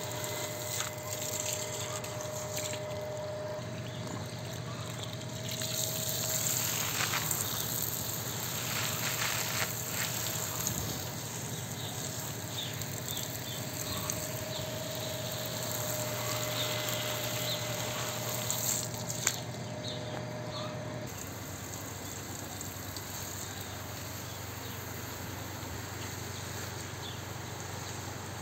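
Water from a garden hose spraying and trickling onto plants and soil, washing off dust from a dust storm. Under it runs a steady hum that stops about three-quarters of the way through.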